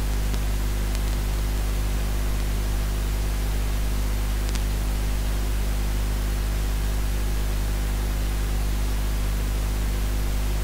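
Steady hiss with a low electrical hum underneath, the recording's noise floor, and a faint tick about four and a half seconds in.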